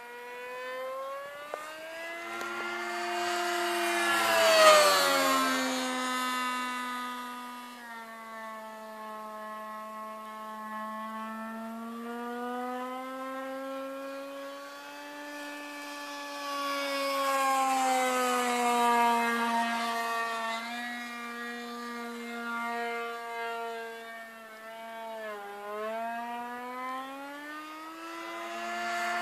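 Engine of a radio-controlled model P-51 Mustang in flight, a steady drone that rises and falls in pitch and loudness as the plane passes. It is loudest about five seconds in, where the pitch drops sharply, and swells again in the middle.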